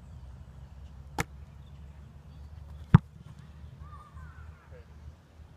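American football punted: one sharp thud of the foot striking the ball about three seconds in, the loudest sound, with a lighter click about a second earlier.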